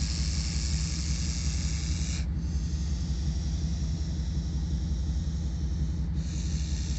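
Cornered bull snake hissing defensively, a steady breathy hiss, over a low engine rumble.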